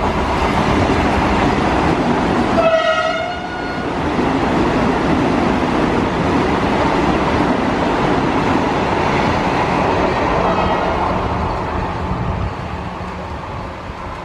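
Vande Bharat Express electric trainset passing close by with a steady loud rush of wheel and air noise. One horn blast of about a second sounds about three seconds in, and the noise fades toward the end.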